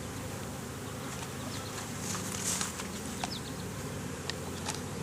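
Honeybees buzzing in a steady hum around an open hive, with a few faint clicks.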